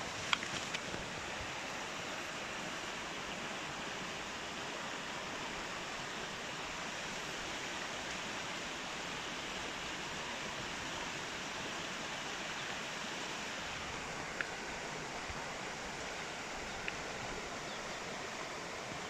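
Steady rush of a swollen, flowing river, with a few faint clicks near the start and twice more later on.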